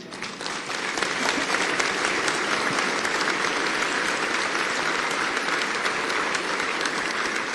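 A large audience applauding. The applause builds up over the first second, then holds steady.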